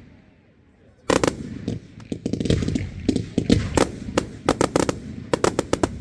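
Fireworks going off: after a quiet first second, a volley of loud bangs starts, then runs on as a rapid, irregular string of sharp reports, with a quick run of cracks near the end.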